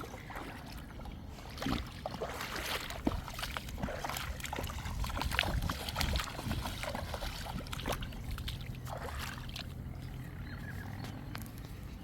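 Water splashing irregularly as someone swims, over a steady low rumble.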